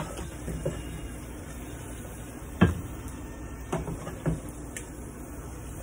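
Wooden spoon stirring dal in a pressure cooker pot, giving a few light knocks against the pot: one clear knock about two and a half seconds in and two softer ones a second or so later.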